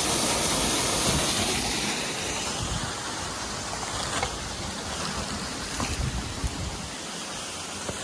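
Small waterfall splashing into a rock pool: a steady rush of falling water, loudest for the first two seconds and then fading to a softer hiss. A few faint knocks in the middle.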